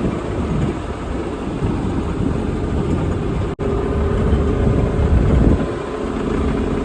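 Sailboat's motor running steadily, heard under heavy low rumble.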